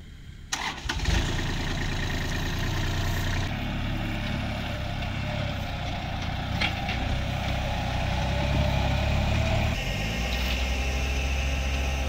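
Kubota compact tractor's diesel engine starting about a second in, then running steadily as the tractor pulls a loaded bale trailer, its engine note shifting a couple of times.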